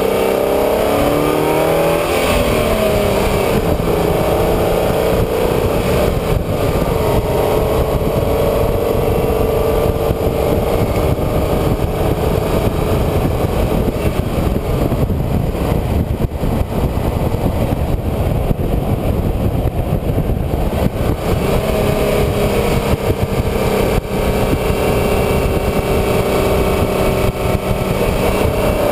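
Car engine heard from on board while driving, with a steady low rumble of road and wind noise beneath it. The revs rise and drop in the first few seconds, hold fairly steady through the middle, and climb again near the end.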